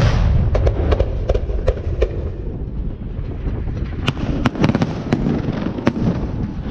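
Aerial fireworks display: a loud bang at the start, then many sharp cracks from bursting shells, thickest about four to six seconds in, over a constant low rumble.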